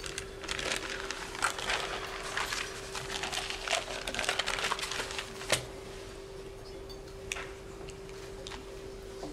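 Newspaper pages rustling and crinkling as the paper is handled and folded. The rustling is busiest over the first five seconds and ends in a sharp crack, followed by a few faint rustles. A steady low hum runs underneath.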